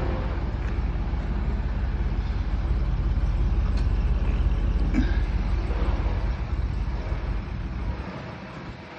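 Heavy vehicle engine running steadily, then dying away near the end.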